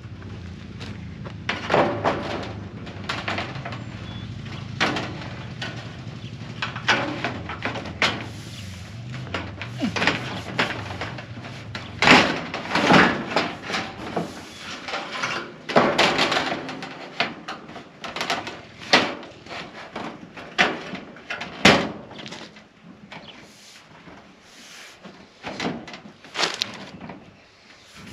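Ribbed steel siding panel being handled and pushed into place against wooden wall framing: repeated knocks, bumps and rattles of the sheet metal flexing and striking the wood.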